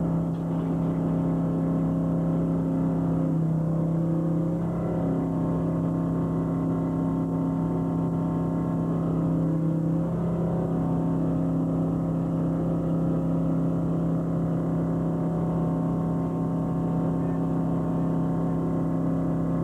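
Fishing trawler's engine running steadily, a constant drone, its pitch shifting slightly around four and ten seconds in.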